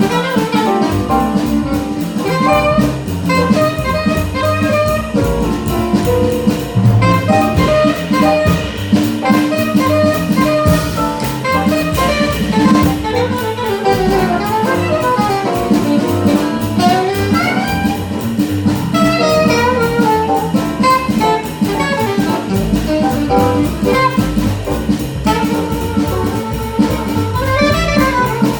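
Small jazz band playing live: alto saxophone and trumpet lines over piano, upright bass and drum kit, in a fast, busy passage of many quick notes.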